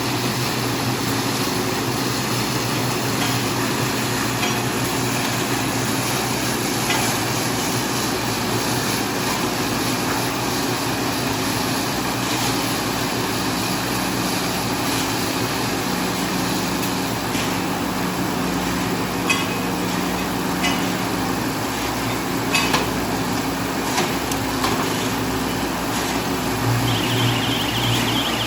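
Electric automatic small baler-wrapper running: a steady mechanical hum with scattered clicks and knocks from the machinery. Near the end a pulsing electronic beep starts.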